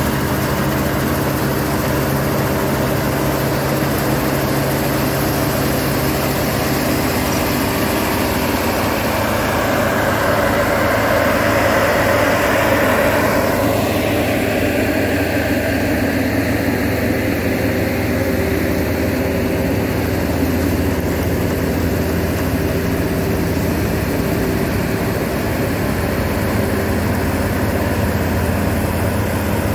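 Vintage self-propelled combine harvesters running steadily while cutting and threshing: a constant engine drone under broad machinery noise, swelling for a few seconds about twelve seconds in.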